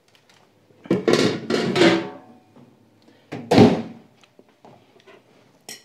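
Clatter of a metal baking tray and kitchen utensils for about a second, then a single sharp thunk about three and a half seconds in.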